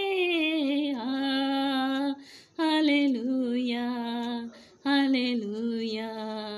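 A woman singing an Urdu Christian worship chorus solo and unaccompanied, drawing out long held notes on "Hallelujah", with two brief pauses for breath between phrases, about two and a half and five seconds in.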